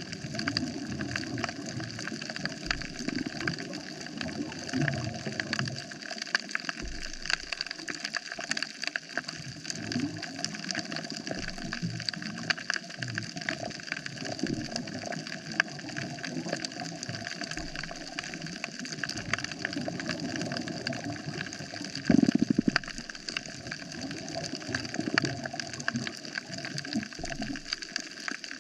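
Underwater coral reef ambience: a dense, continuous crackle of tiny clicks over a low, irregular rumble. About 22 seconds in, a louder, low pitched buzz lasts about a second.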